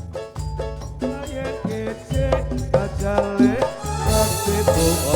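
Live Ndolalak dance music played loud through a large sound system: a keyboard-like melody over a steady drum and bass pattern, with a bright high wash joining about four seconds in.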